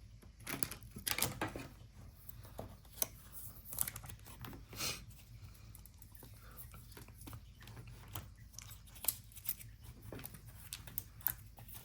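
Trading cards being handled and shuffled: soft, irregular rustling and crinkling with scattered light clicks.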